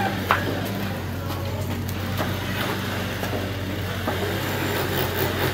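Steady low machine hum under scattered short clicks and knocks, the sharpest about a third of a second in.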